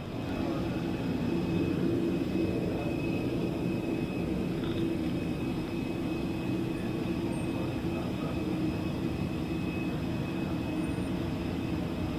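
Steady low hum and rumble with a thin, constant high whine over it, from a parked Airbus A319 and the jet-bridge equipment at the gate.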